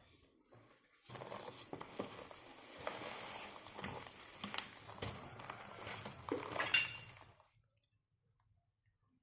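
Packaging being handled during an unboxing: rustling and crinkling with scattered knocks and clinks, stopping about seven seconds in.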